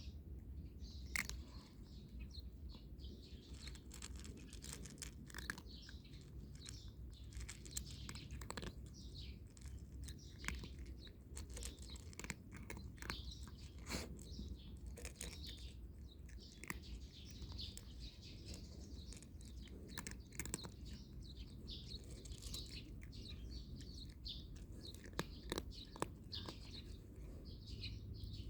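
A cat crunching dry kibble, with irregular crisp bites and chews, while small birds chirp in the background.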